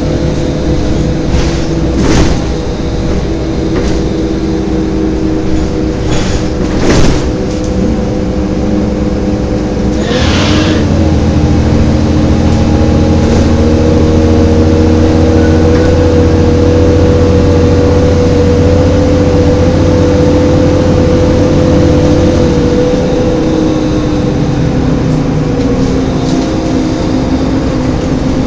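Volvo B7LA articulated bus's diesel engine and drivetrain running, heard from inside the passenger saloon. About ten seconds in it gets louder and deeper for some ten seconds, with a steady whine held over it, and there are a few short knocks in the first ten seconds.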